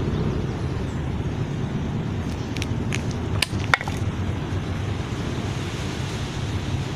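Pruning shears snipping the roots of a Phyllanthus reticulatus (ileng-ileng) bonsai stock: a few sharp clicks between about two and four seconds in, the last the loudest, over a steady low background rumble.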